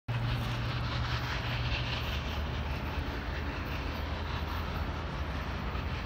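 Steam locomotive running with a steady low rumble under a rushing hiss, without its whistle sounding.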